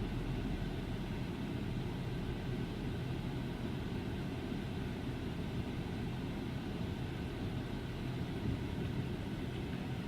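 Ford 5.4 V8 engine idling steadily in gear, with the AC on adding load. Under load like this the owner sees no misfire; his misfire shows only just off idle with no load.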